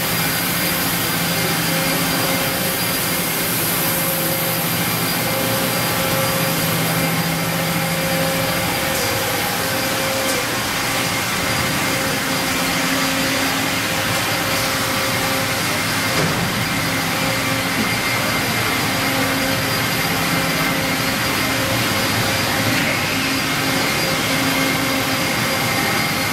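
Industrial machinery running steadily: a constant whirring rush with several steady hum tones, like motors and pumps on a powered-up machine tool. One low hum tone drops out about nine seconds in.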